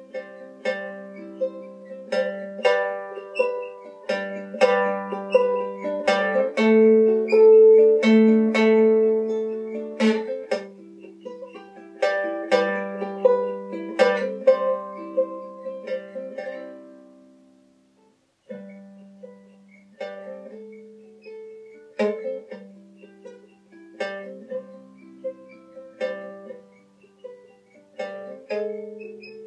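Ukulele fingerpicking a slow G–D–Em–C chord progression, each chord ringing out as plucked notes. About two-thirds of the way through it dies away almost to silence, then the picking starts again.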